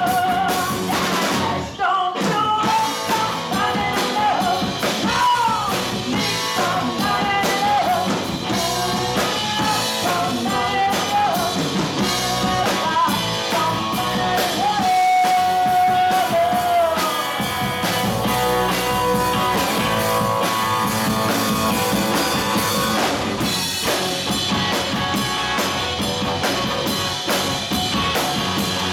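Live rock band playing: a woman singing over electric guitar, electric bass and a drum kit.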